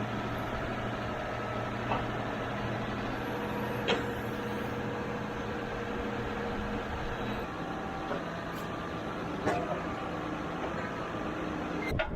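A vehicle's engine running steadily, with a few light knocks. Its low hum shifts about two-thirds of the way through.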